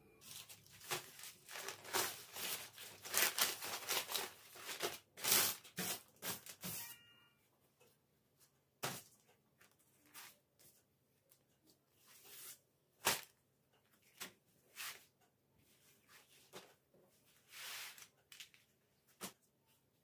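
Thin yufka pastry sheets and baking paper rustling and crinkling as they are unrolled and spread flat by hand. The rustling is dense for the first seven seconds or so, then comes as scattered separate rustles and light ticks.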